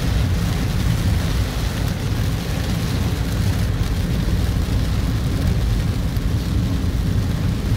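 Inside a car driving in heavy rain: a steady low rumble of the car and its tyres on the wet road, with rain hissing on the windshield.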